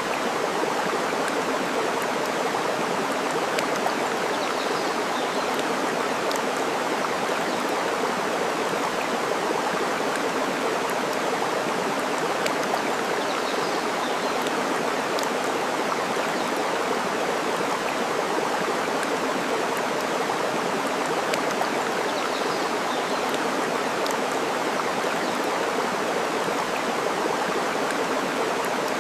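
Steady rush of flowing water, with occasional faint crackles from a burning wood fire and a faint bird chirp three times.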